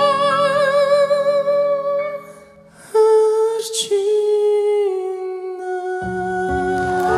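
A young man sings a slow ballad into a microphone, holding long notes with vibrato, to a keyboard accompaniment. The voice breaks off briefly about two and a half seconds in, then carries a long held note. Low keyboard chords come back in near the end.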